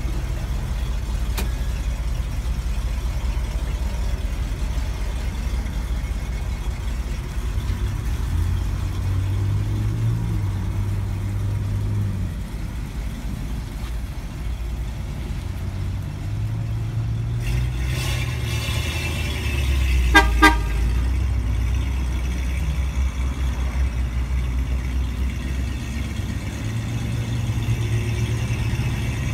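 1962 Ford F-350 work truck's engine running as the truck pulls away and drives off, the revs rising and falling several times. About twenty seconds in, a vehicle horn toots twice, briefly.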